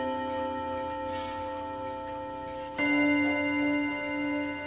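Wall clock's chime hammers striking its chime rods: one note at the start and a louder one about three seconds in, each ringing on long. The chime is being tested with its hammers just realigned, and the notes ring clean.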